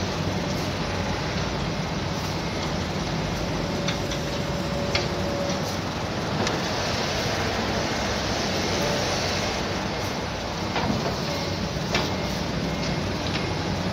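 Diesel engines of excavators and dump trucks running steadily at an earthworks dig, with a few sharp knocks.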